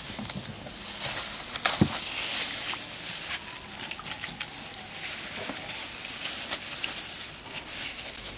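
Light water sounds and scattered small clicks and ticks from a steel basin of water as lime juice is squeezed into it, with a couple of sharper clicks about two seconds in.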